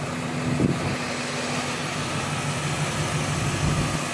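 The 400 cubic-inch V8 of a 1979 Lincoln Continental Mark V idling with a smooth, steady hum. It runs so quietly you can barely even hear it.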